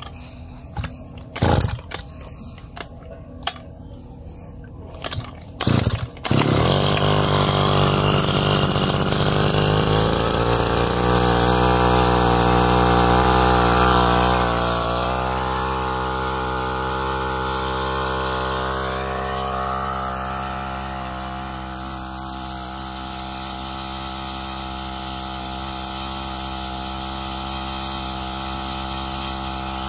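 Komatsu G260 two-stroke brushcutter engine driving a 90 mm propeller pump through a gearbox. A few short sharp sounds as it is pull-started, then it catches about six seconds in and runs at high revs. About halfway through it settles to a lower, steady running speed under the pump's load.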